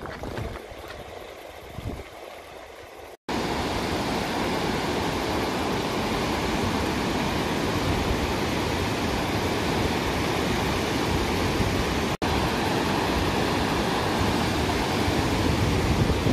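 Steady loud rush of a fast glacial meltwater river, heard from a swing bridge above it and mixed with wind buffeting the microphone. It cuts in suddenly about three seconds in, after quieter outdoor sound, and drops out for an instant later on.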